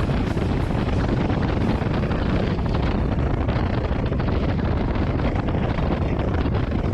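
Harley-Davidson Road Glide Limited being ridden at road speed: engine and road noise under steady wind buffeting on the microphone.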